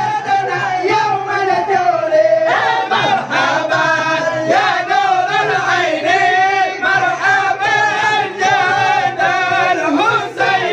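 A group of men singing a syair together in unison, with long wavering melismatic lines, their voices amplified through hand-held microphones.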